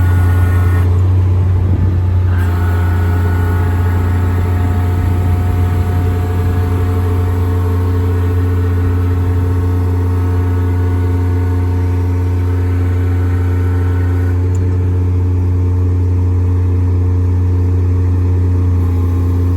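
Miller EnPak engine-driven compressor, generator and hydraulic unit running with a steady low drone. From about two seconds in until about fourteen seconds, a higher steady whine rides on top of the drone, as the hydraulics are worked.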